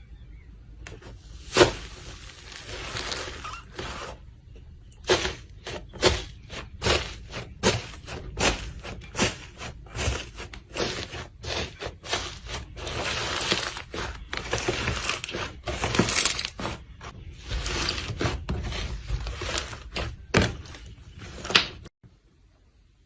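Slime being squeezed and pressed by hand, giving irregular sharp pops and crackles about once or twice a second over a soft squelching rustle. It cuts off suddenly near the end.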